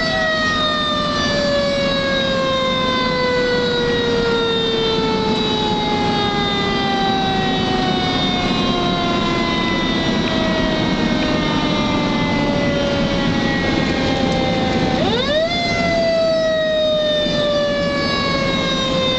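Fire engine siren falling slowly in pitch for about fifteen seconds, then quickly spun back up and falling again, with the truck's engine running underneath.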